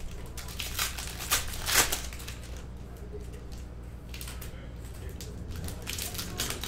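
Foil trading-card packs being torn open and their wrappers crinkled: several quick tearing and rustling bursts in the first two seconds, then softer rustling near the end.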